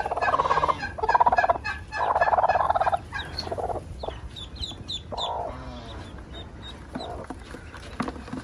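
Broody hen on her nest giving three long, harsh calls in the first three seconds and another about five seconds in as ducklings are lifted out from under her, a hen's protest at being disturbed. Newly hatched ducklings peep with short high chirps throughout.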